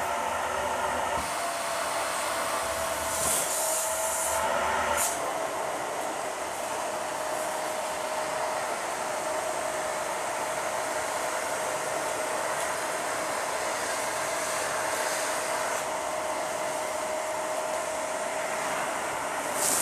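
Dyson vacuum running through its hose: a steady rush of air with one constant motor whine, and a couple of brief sharper hisses about three and five seconds in.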